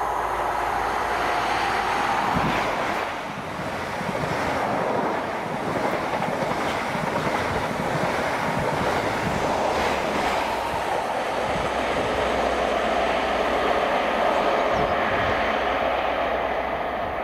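Express passenger trains running at speed. An express rushes past close by with rapid clatter of wheels over the rail joints, which settles into a steadier drone near the end as an HST with Class 43 diesel power cars approaches.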